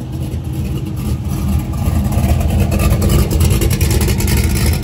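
A large vehicle engine running close by, its sound growing louder over the first three seconds and then holding steady.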